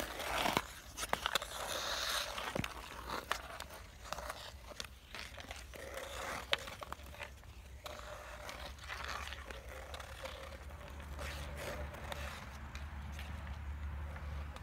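Ice skate blades scraping and carving across the clear ice of a frozen pond, with scattered sharp clicks through the scraping.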